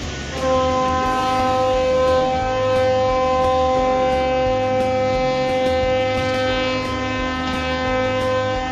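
A ship's horn sounding one long, steady blast, starting again about half a second in after a brief break, over a low rumble.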